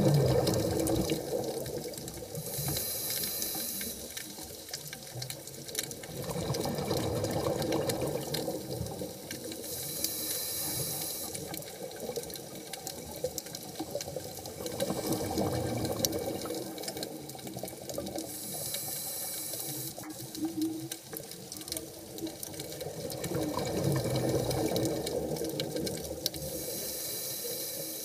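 Scuba diver breathing through a regulator underwater, four slow breaths. Each is a short hiss of inhalation, followed by a longer gurgling rush of exhaled bubbles.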